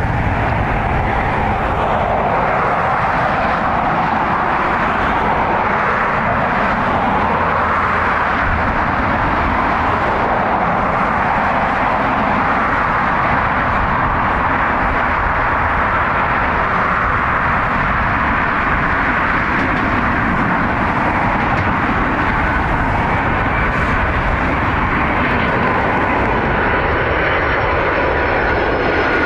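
Boeing 757's jet engines on final approach at low thrust: a steady rush of engine and air noise, with a faint high whine coming in near the end as the aircraft draws closer.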